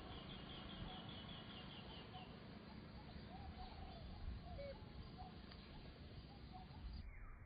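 Faint outdoor ambience with birds chirping: a fast run of high chirps in the first two seconds, then a few short, faint calls.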